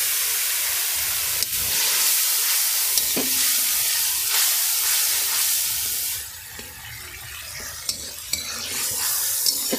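Chilli, cumin and ginger masala frying in hot mustard oil in a kadai, sizzling steadily as it is stirred, with a few clicks. The sizzle falls away about six seconds in and builds back up near the end.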